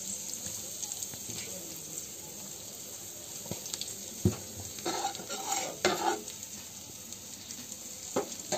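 Boiled lentil dal in an open aluminium pressure-cooker pot on the stove, with a steady hiss of cooking as salt and turmeric go in, and a sharp knock a little after four seconds followed by a few clinks and clatters of utensils against the pot.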